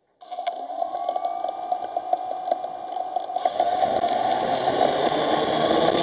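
Drone motors and propellers spinning up from rest: a sudden start into a steady whine with a brief rising pitch and many small ticks, growing louder about three and a half seconds in as the drone throttles up to lift off.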